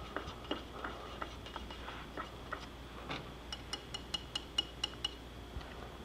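Light taps and knocks, then a quick run of about ten sharp, ringing clinks over a second and a half, like something small struck against a hard metal or glass rim.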